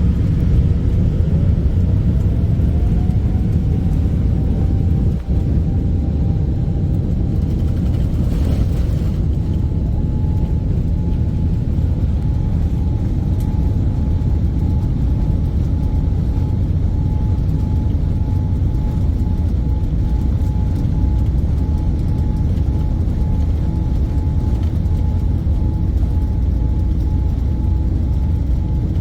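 Boeing 787's jet engines spooling up to takeoff power, heard inside the cabin: a heavy rumble with a whine that rises over the first few seconds and then holds steady through the takeoff run.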